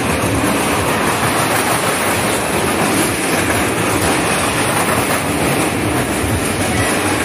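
Roller coaster car rolling along its steel track close by, a loud, steady rumble and clatter of wheels on rails.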